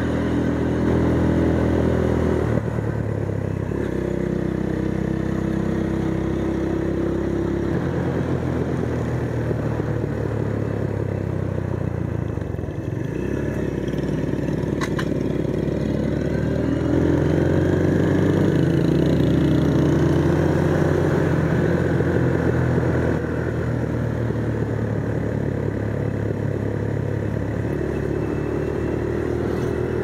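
Motorcycle engine running while riding along, its note rising and falling with the throttle, climbing a little past halfway and then dropping back.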